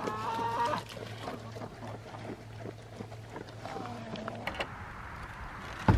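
Pigs eating grain feed from a bowl, with many small crunching and smacking ticks and two short pitched animal calls, one at the start and a falling one about four seconds in. A low steady hum runs underneath and stops about four and a half seconds in.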